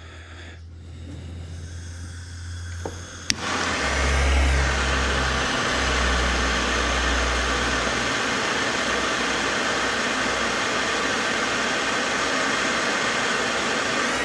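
A sharp click, then about three and a half seconds in a steady motor noise starts: an even rushing hiss over a low hum that wavers for a few seconds, then runs on steadily.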